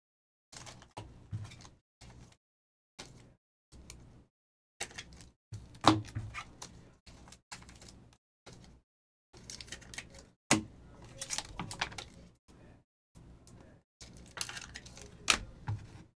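Panini Optic football cards being handled and flipped through by hand: scattered clicks, taps and rustles of stiff card stock in short spells broken by dead silence, with a few sharper clicks standing out.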